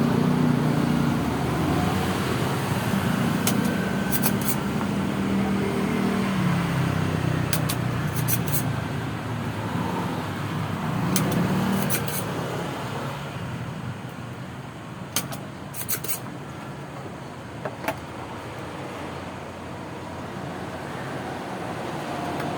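Road traffic noise of vehicles passing, swelling and easing off, loudest in the first half. A few light clicks are scattered through it.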